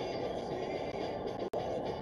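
Steady road and tyre noise inside a moving car's cabin, with music from the car radio faintly underneath. The audio drops out for an instant about one and a half seconds in.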